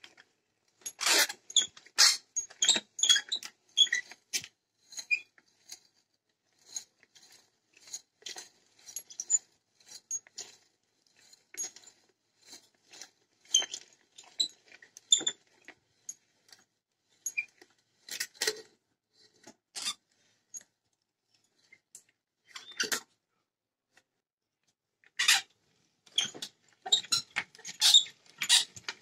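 Restored antique auger bit in a hand brace boring into a wooden block: irregular squeaks, creaks and crackles as the bit cuts and the chips break away, in spells with short pauses between turns.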